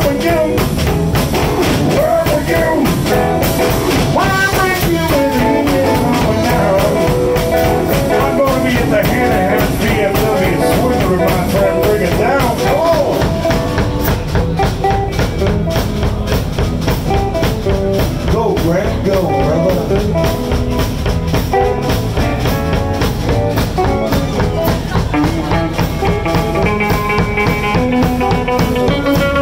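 Live blues band playing a song: drum kit keeping a steady beat under guitar, with a lead line that bends up and down in pitch.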